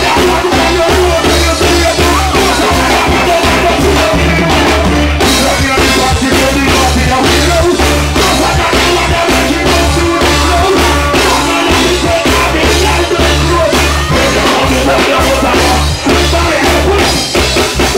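Loud live reggae band music played through a concert sound system, with a heavy bass line, a steady drum-kit beat and keyboards, and a singer's voice on the microphone.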